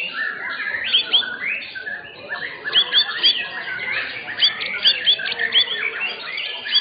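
White-rumped shamas (murai batu) singing in contest: a dense, fast stream of short rising and arching whistled notes, many of them overlapping.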